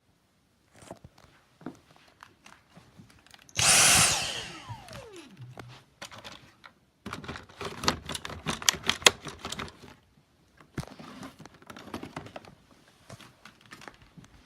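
Knocking and clattering of objects being handled, with one loud short rush of noise about three and a half seconds in that dies away with a falling tone, like a small motor switched on briefly and spinning down.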